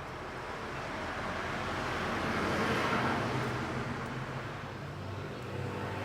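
A passing road vehicle, a rushing noise that swells to a peak about halfway through and fades again, over a steady low hum.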